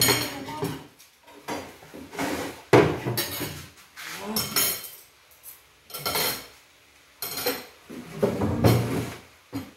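Metal ladle knocking and scraping in an earthenware clay pot, with plates and cutlery clinking, as food is served: a run of separate clatters and knocks.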